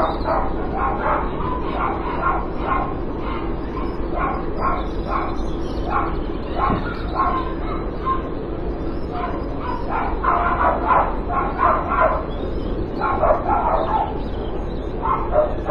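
Dogs barking over and over, about two or three barks a second, with a short lull about twelve seconds in; this is the nuisance barking being recorded as evidence.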